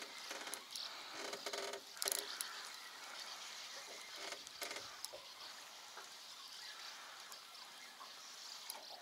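A few light clicks and knocks of gear being handled in a small fishing boat in the first two seconds, then faint open-air hiss.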